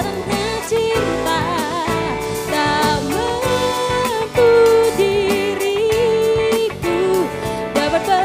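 A woman singing a ballad into a microphone with a live band of keyboard, drums and bass guitar, holding long notes with vibrato over a steady beat.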